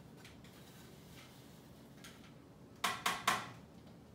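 Three quick, sharp knocks about three seconds in: a food processor bowl being rapped to empty a crumb crust into a glass baking dish. Faint handling rustle before them.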